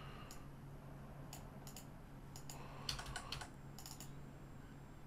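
Computer keyboard keys and mouse buttons clicking faintly in scattered taps, with a quick run of clicks around the middle, over a low steady hum.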